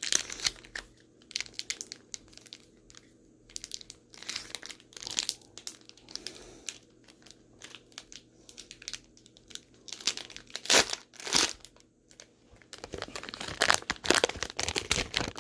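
Foil Pokémon booster pack wrapper being crinkled and torn open by hand: irregular crackling rustles, loudest toward the end.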